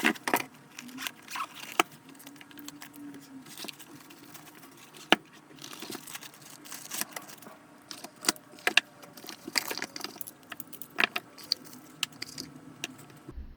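Irregular clicks, taps and light rattles of hard objects being handled, with sharp knocks about five seconds in and again near eleven seconds.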